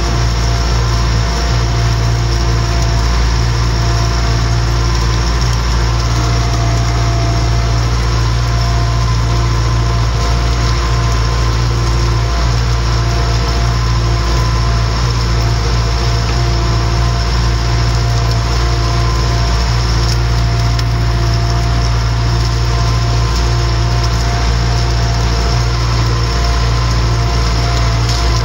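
MTZ-892 tractor's four-cylinder diesel running steadily under load while pulling a field cultivator through the soil, held at about 1600–1700 rpm and taking the pull relatively easily.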